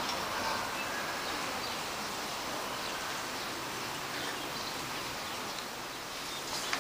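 Steady outdoor background noise heard from a balcony, with faint, scattered short high chirps and a short sharp click near the end.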